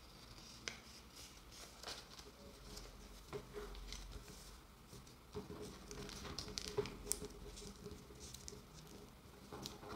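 Faint handling of a paper pattern piece: soft rustles and light taps as the folded paper strip is unfolded and hands slide over it, smoothing it flat against a cutting mat.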